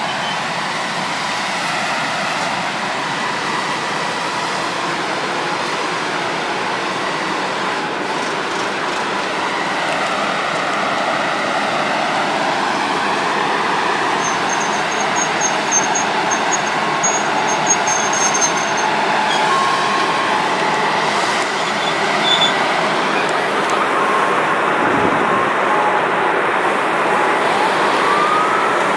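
ET22 six-axle electric freight locomotive starting off and slowly pulling a coal train: steady running noise with a thin, steady high whine throughout, and a tone rising and falling near the end.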